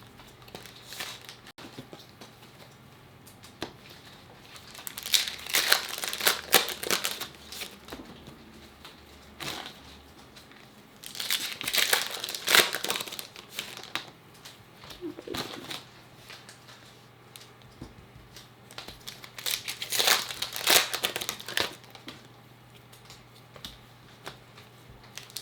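Plastic and foil trading-card packaging crinkling and tearing as the Topps Chrome Sapphire boxes and packs are opened by hand, in three separate bursts of handling with quiet between.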